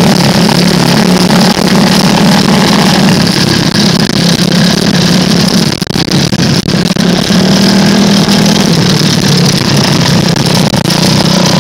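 Off-road buggy engine running steadily under load while driving over a rough trail, with a brief drop in loudness about six seconds in.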